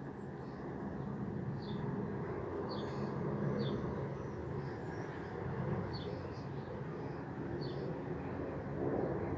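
Steady low rumble of a British Airways Boeing 747-400's four jet engines passing overhead. A small bird chirps every second or two, short high calls that drop in pitch.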